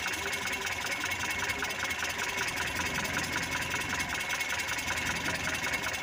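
Mitsubishi Colt T120 four-cylinder petrol engine idling steadily with a quick, even ticking, as its distributor is turned by hand to set the ignition timing.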